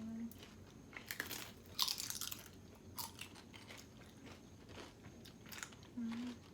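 Close-miked chewing and biting of crunchy food, a string of irregular crunches. A short low hummed tone sounds at the start and again near the end.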